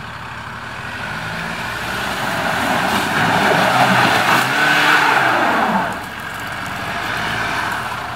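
A four-wheel-drive's engine revving hard under load, its pitch rising and falling. It builds to its loudest about halfway through, then eases off near the end.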